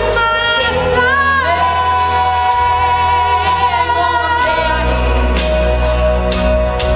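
A pop song with a singer holding one long note over a bass line and a steady beat.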